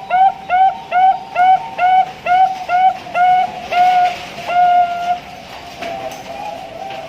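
Zebra dove (Bangkok perkutut) singing: a run of short, clear coos at about two a second, each a little drawn out, closing a little past the middle on one long held note, the long ending ('ujung panjang') that fanciers prize. Fainter cooing follows.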